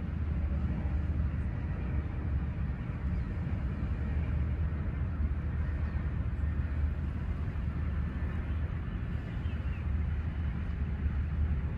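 Steady low rumble of wind buffeting the microphone in the open air by the sea, with no rope strikes or footfalls.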